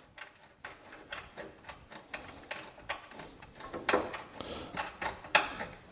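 Irregular light mechanical clicks and ticks of a socket tool working a 10 mm nut off the hood ajar switch mount, a few a second and thickest around the middle.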